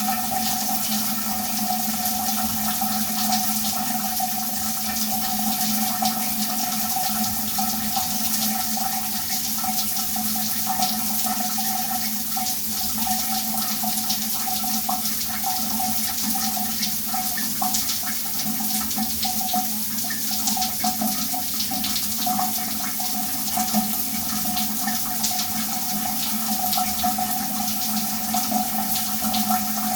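Shower running steadily: a continuous rush of spraying and splashing water, with a steady low hum and a higher steady tone under the noise.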